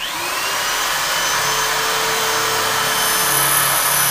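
Electric drill boring into a masonry wall. The motor starts abruptly, then runs steadily under load with a high whine and the grinding of the bit in the wall.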